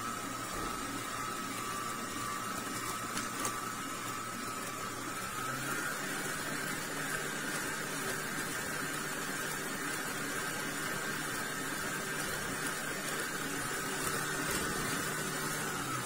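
Electric stand mixer motor running steadily as its wire whisk beats cream paste and water in a steel bowl; its hum steps up in pitch about six seconds in.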